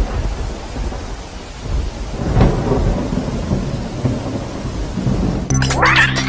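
Recorded thunderstorm sound effect played over a PA: steady rain hiss with low rolls of thunder. About five and a half seconds in, a music track cuts in with a rising sweep.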